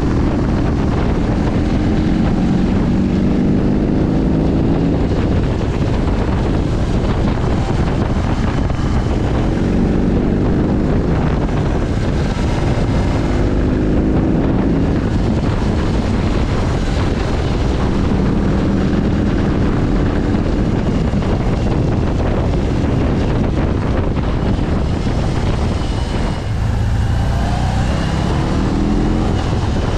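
BMW R18's 1800 cc boxer twin engine under way, its note rising several times as the bike accelerates through the gears, beneath heavy wind noise on the microphone.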